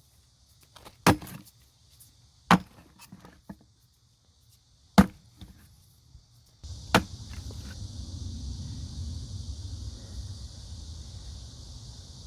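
Sharp chopping strikes on wood, four hard blows a second or two apart with lighter knocks between. About halfway through a steady rushing noise starts and runs on under the last strike.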